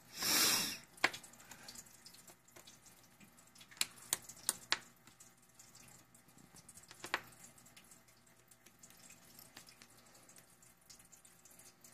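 Precision screwdriver working a tiny screw out of a laptop screen's mounting bracket: a short rush of noise at the start, then a few faint, scattered clicks and ticks of the metal tip on the screw, with a quick cluster of four about four to five seconds in.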